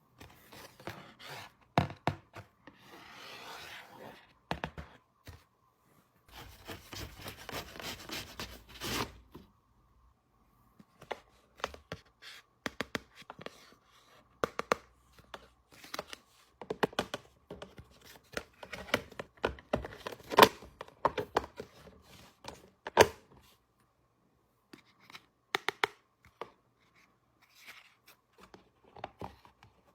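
Unboxing of a miniature toy kitchen set: packaging tearing and rustling for the first nine seconds or so, then a long run of small, sharp clicks and taps as the little pieces are handled and set down.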